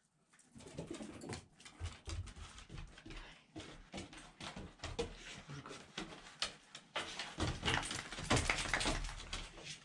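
A dog moving about close to the microphone, with irregular scuffling and small clicks; it gets louder in the last few seconds as the dog comes right up to the microphone.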